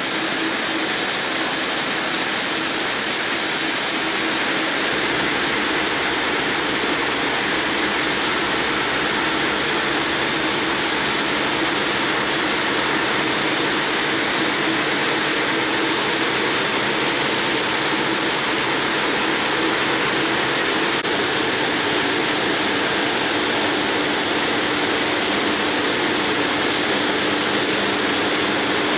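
Granite block cutter's large circular saw blade grinding steadily through a granite block under a spray of cooling water: an even rushing noise of blade and water, with a faint steady hum underneath.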